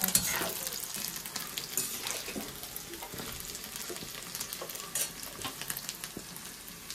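Egg paneer cubes frying in hot oil in a steel kadai, sizzling and crackling steadily, while a slotted steel spoon stirs them with scattered clicks and scrapes against the pan and a sharper knock at the very start.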